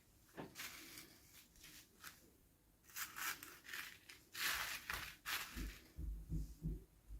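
Packaging being torn open and crinkled by hand: a run of short rustling bursts, followed near the end by a few soft low thumps.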